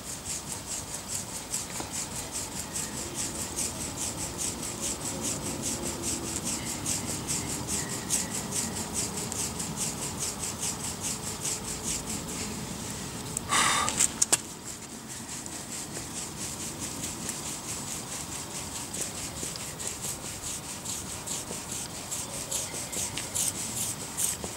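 Hands rubbing an Abyssinian cat's short coat in quick, evenly repeated strokes, a steady rasping rub of fur. About halfway through, a brief louder sound cuts in for about half a second.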